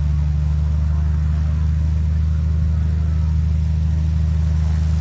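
Extreme Air XA-42 aerobatic plane's piston engine and propeller running at a steady, even drone.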